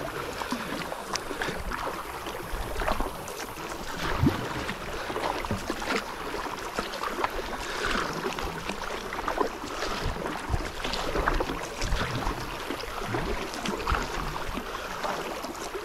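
Kayak paddle strokes: the blades dipping into the water and dripping, with small irregular splashes and water washing along the hull.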